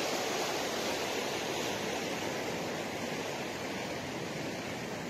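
Steady rush of a river in flood, its water high and fast after heavy rain.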